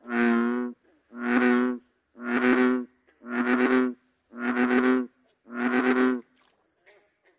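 American bullfrog calling: six evenly spaced croaks, each just under a second long, about one a second.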